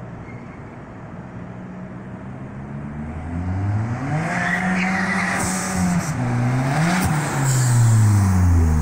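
Turbocharged 2003 Saab 9-3 four-cylinder, fitted with a Mitsubishi TD04 turbo, pulling hard as the car drives up and past. The engine note grows louder and climbs in pitch over several seconds, dips briefly, then falls away, loudest near the end.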